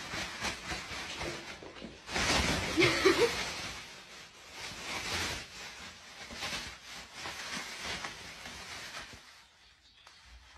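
Thin plastic carrier bag rustling and crinkling as it is lifted and a cat shifts about inside it, loudest about two to three and a half seconds in, then dying away near the end.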